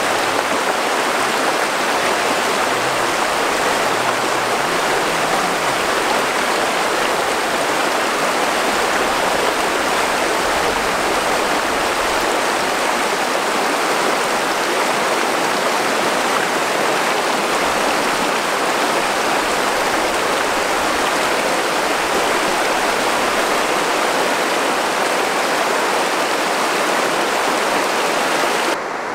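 Steady rush of flowing river water, even and unbroken, dropping abruptly to a quieter, duller rush just before the end.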